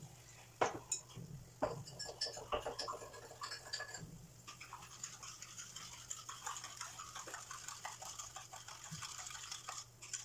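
Oil sizzling and crackling in a frying pan around rice-filled lumpia rolls. There are a few sharp clicks in the first two seconds, and from about halfway the crackle becomes denser and steadier.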